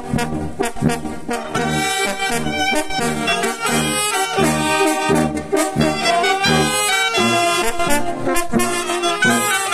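Mexican village brass band of trumpets, alto saxophone, baritone horns and sousaphone playing a tune together, with the bass notes pulsing about twice a second.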